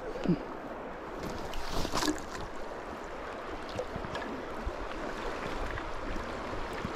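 Steady rush of flowing creek water, with wind rumbling on the microphone and a couple of short sharp sounds near the start and about two seconds in.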